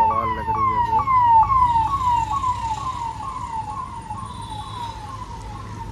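Electronic vehicle siren sounding a quick falling sweep over and over, about two to three times a second, growing steadily fainter, over a low traffic hum.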